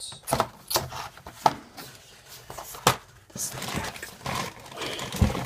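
Handling of a plastic model kit's parts and cardboard box: a series of irregular clicks and knocks with rustling of bags and packaging in between.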